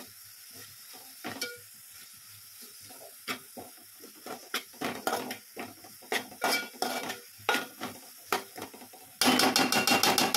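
A metal spoon scraping and clinking against a metal pan as sliced mushrooms are stirred into a frying onion-and-spice masala, over a faint steady sizzle. The strokes come irregularly at first, then turn into a fast, louder run of scraping near the end.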